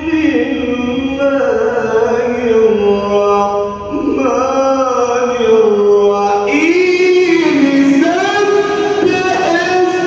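A man's voice in melodic Quran recitation, holding long ornamented notes that glide up and down in pitch, with a new, higher phrase starting about two-thirds of the way through.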